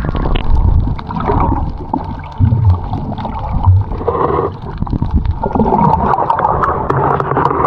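Turbulent water sloshing and gurgling close to the microphone, rising and falling unevenly, with scattered sharp clicks in the second half.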